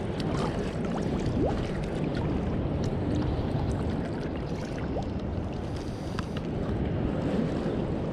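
Steady rush of wind on the microphone and river water moving, with a few faint light clicks.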